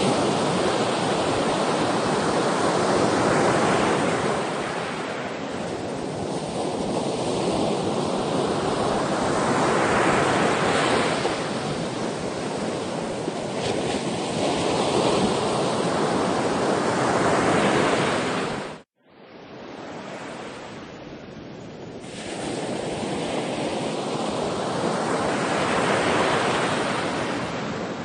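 Sea waves breaking and washing ashore, swelling and ebbing every several seconds. About two-thirds of the way through the sound cuts out for an instant and comes back quieter and duller for a few seconds before the surf builds again.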